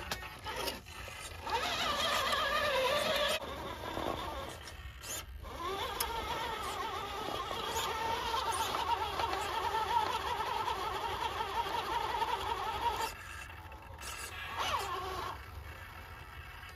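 RC rock crawler's electric motor and geared transmission whining in spurts as it is driven over rocks, the pitch wavering up and down with the throttle and dropping away between pushes.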